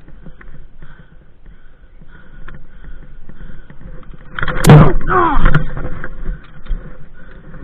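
Airsoft skirmish: scattered faint sharp clicks of gunfire, and about four and a half seconds in a loud shout lasting about a second.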